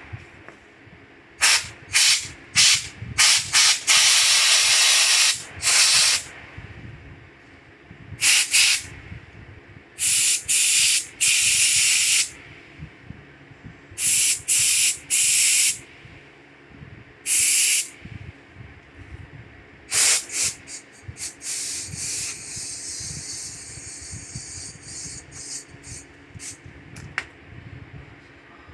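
Pressurized spray hissing in repeated bursts, some short and some lasting one to two seconds, with a fainter, longer hiss about three-quarters of the way through.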